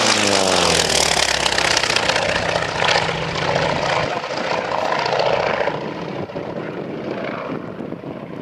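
Grumman FM-2 Wildcat's nine-cylinder Wright Cyclone radial engine and propeller on a low fly-by. The engine note drops in pitch as the fighter passes close, stays loud for several seconds, then grows quieter near the end as it climbs away.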